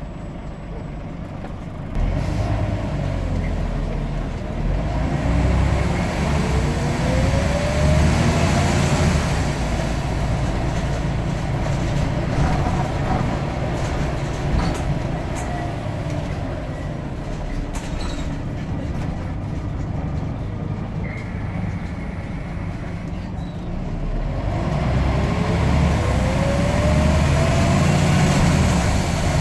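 Scania N94UD double-decker bus's 9-litre five-cylinder diesel engine pulling hard. A rising whine climbs twice, once a few seconds in and again near the end, as the bus accelerates, with steadier running between.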